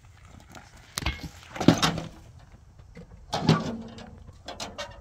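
Steel wheelbarrow clanking and scraping as it is tipped and worked to empty out soil. The knocks come in a few separate bursts, two of them loud.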